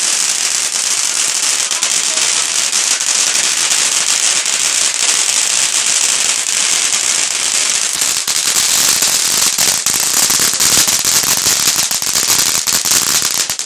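Firework crackling without a break, a dense run of small rapid pops over a steady hiss, which stops suddenly near the end.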